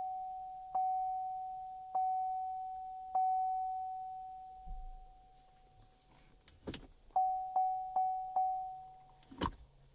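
Chevy Volt's dashboard warning chime: a single tone pinging four times about a second apart, each ringing away slowly, then after a pause and a click, four quicker pings with another click near the end. The quick pings come with the car's 'Action Required, Shift to Park' alert as it fails to go into ready mode.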